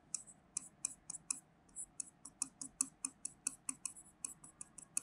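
A pen stylus writing on an interactive touchscreen board: a faint, irregular run of short taps and scratches, several a second, as a word is written out stroke by stroke.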